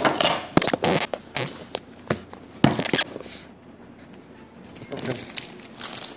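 Plastic packaging and fittings being handled on a table: clicks and rustles for the first few seconds, a short lull, then a plastic bag crinkling from about five seconds in.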